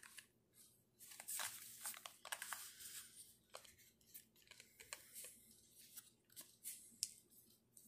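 Faint rustling of plastic cosmetic packaging and light clicks of small makeup tubes and pencils knocking together as they are picked up and handled, busiest in the first three seconds.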